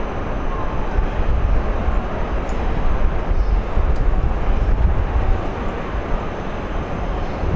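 Railway station platform ambience: a steady rumble of distant trains and city noise, with wind buffeting the microphone.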